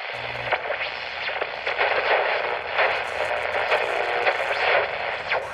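Radio static: a steady, thin hiss with crackles all through it, fading out near the end.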